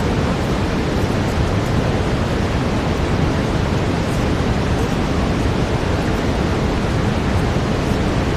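Steady brown noise: an even, unchanging rushing hiss weighted toward the low end.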